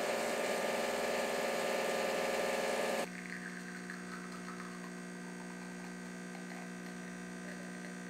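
Stock vibratory pump of a Rancilio espresso machine buzzing under load while pulling a shot. About three seconds in it gives way to a quieter steady hum from a vibratory pump fitted with a Lelit silent pump and a Pulsor damper, also pulling a shot.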